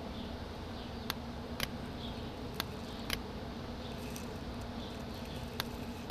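Several sharp computer-mouse clicks, some in pairs about half a second apart, over a steady low electrical hum and hiss.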